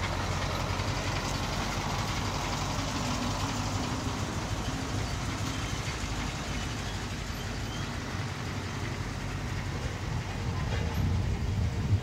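Diesel engine of road-works machinery running steadily at a low, even speed, growing somewhat louder over the last couple of seconds.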